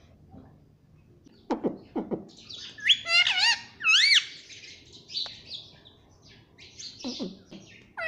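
Indian ringneck parakeet calling. A couple of short low dropping notes come first, then about three seconds in, two loud whistled calls that swoop up and down in pitch, followed by softer scratchy chatter and another dipping whistle near the end.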